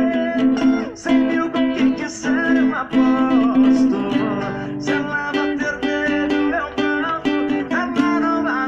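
Acoustic guitar played in rhythmic strummed chords.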